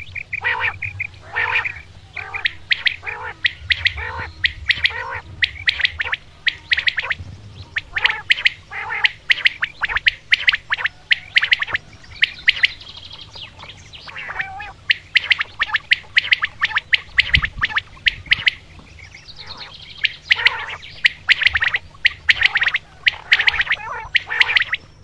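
Common quail calling over and over, many short calls in quick series with brief lulls, over a faint steady low hum.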